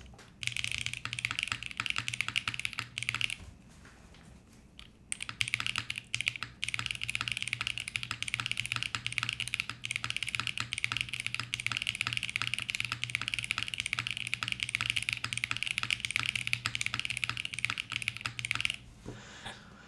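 Typing on a HIBI June 60% mechanical keyboard, which has a silicone tray-mounted case, an FR4 plate and lubed CK x Haimu Pastel Peach switches. A quick run of keystrokes is followed by a pause of about a second and a half, then rapid, steady typing that stops near the end.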